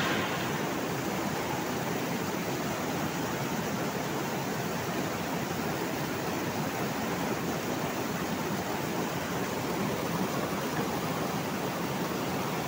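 Dirty backwash water from a rapid sand filter pouring steadily over the wash-trough edges and splashing into the wash-water channel below: the filter bed is being cleaned by backwashing.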